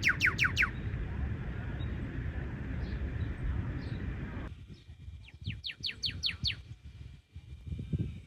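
Bird song: a rapid series of about seven sharply downslurred notes, sung twice, over low rumbling background noise.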